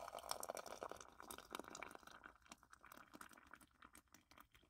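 Faint stream of hot water from a single-serve coffee brewer pouring into a glass mug over a tea bag, a fine crackling trickle that fades toward the end.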